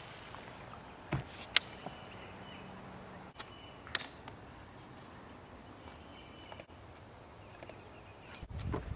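Insects singing in a steady, high-pitched buzz over the water, broken by a few sharp clicks. Low knocks and rumbling come in near the end.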